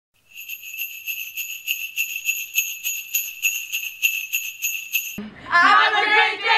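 Sleigh bells jingling in a steady shaken rhythm, about four shakes a second, stopping abruptly about five seconds in. A group of girls' voices then breaks in loudly, singing out together.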